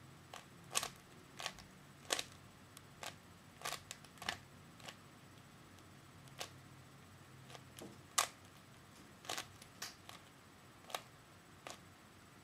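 3x3 Rubik's cube being turned by hand: sharp plastic clicks of the layers snapping into place, coming irregularly, about fifteen of them.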